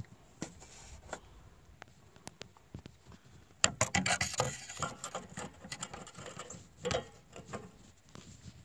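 Handling noise at the truck's grille: scattered light clicks, with a flurry of scraping and clattering from about three and a half to five and a half seconds in and another short burst near seven seconds.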